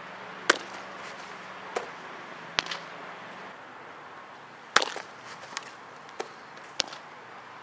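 Baseball popping into a catcher's leather mitt with a sharp smack, loudest twice about four seconds apart, with several fainter sharp knocks in between, over a steady background hiss.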